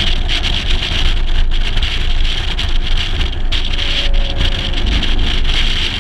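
Wind buffeting and rushing over an outside-mounted camera microphone on a moving Mercedes-Benz 300 SL, with the car's engine faintly audible underneath as a tone that falls slightly about four seconds in.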